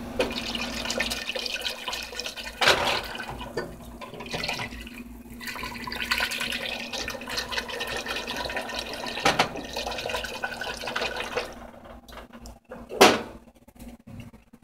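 Wire whisk beating a thick cream sauce in a saucepan: wet sloshing with rapid clicks of the wires against the pot. The whisking stops about eleven or twelve seconds in, and a single louder knock follows near the end.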